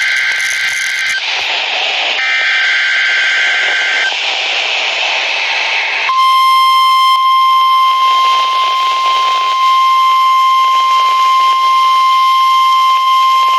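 NOAA Weather Radio emergency alert through a radio receiver: two screechy digital data bursts (the SAME alert header), each about a second long with a pause of receiver hiss between, then about six seconds in the steady 1050 Hz warning alarm tone starts and holds. The alarm tone signals that a new watch or warning is about to be read.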